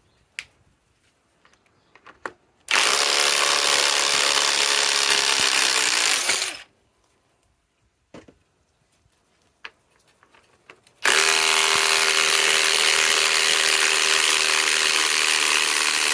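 Two cordless compact impact wrenches run one after the other, each held on for several seconds with a steady high whine; a few light clicks come before each run.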